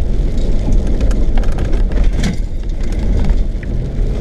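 Car driving on a dirt track, heard from inside the cabin: a steady low rumble of engine and tyres with scattered ticks and knocks.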